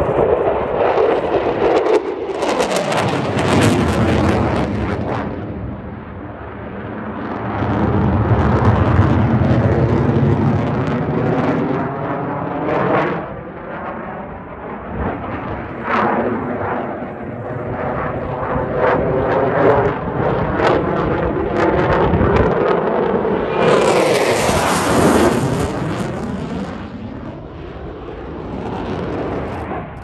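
Eurofighter Typhoon's twin turbofan engines heard from the ground as the jet flies display passes, the jet noise swelling and fading with sweeping shifts in pitch as it goes by. The loudest, hissing pass comes about twenty-four seconds in.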